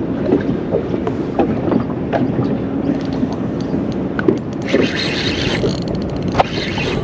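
Steady wind and water noise on a small fishing boat drifting on a river, with scattered small knocks and taps. About five seconds in there is a brief hiss.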